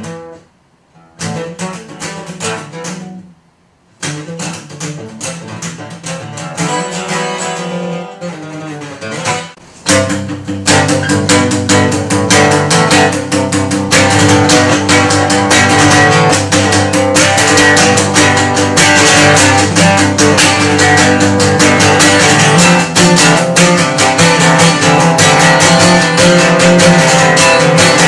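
Solo acoustic guitar: after two short silences in the first few seconds, picked notes build up and, about ten seconds in, turn into steady, loud strumming.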